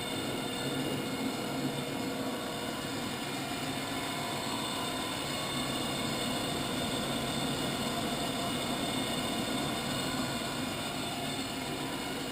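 Centerless grinder running steadily, its two grinding wheels spun by electric motors: an even mechanical hum with several steady tones.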